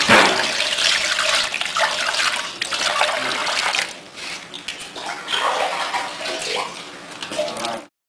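Water poured from a metal ladle splashing over a grinding mill's stone grinding wheel and into its steel basin, as the mill is washed out. The splashing is loudest for the first four seconds, eases off, and comes again briefly about five seconds in before the sound cuts off suddenly near the end.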